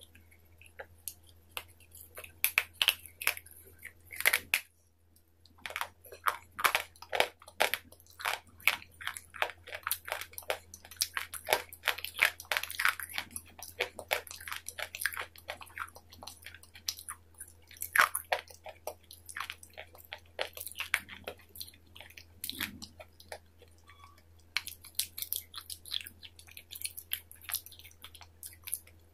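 Close-miked biting and chewing of a brittle white stick: a run of sharp, crisp crunches and crackles with a brief pause about four seconds in. A steady low hum lies under it throughout.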